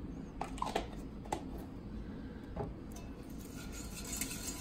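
A few light clicks and taps, then a wire whisk scraping softly around a saucepan as it stirs a thick flour-and-oil roux.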